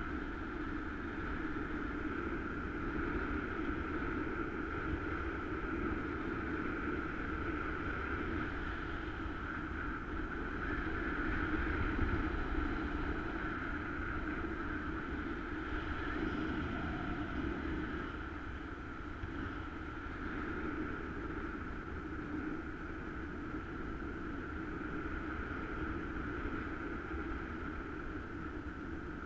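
Steady rush of airflow over the action camera and its housing while flying under a paraglider, with a constant hollow hiss and no changes beyond a slight swell partway through.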